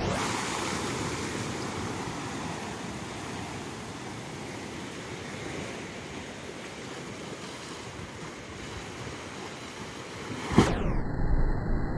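Sea waves breaking and washing over a stepped stone seawall: a steady rush of surf that slowly eases, then turns abruptly louder and rougher near the end.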